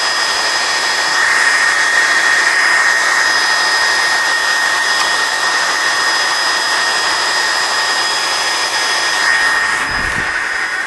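Cooling fans of a GX-E-CS2 portable high-pressure air compressor and its power supply running at a steady pitch, with the pump itself stopped: a steady rush of air with a thin high whine. A few low knocks near the end.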